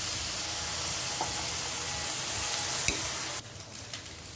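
Sautéed banana heart and pork sizzling in a wok, a steady hiss with a couple of light clicks; the sizzle drops off abruptly about three and a half seconds in.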